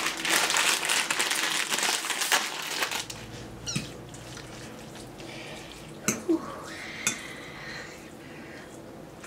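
Noodles hissing in a pan on a gas stove for about three seconds, then fork clinks against ceramic bowls as two people eat, three sharp clicks spread over the next few seconds.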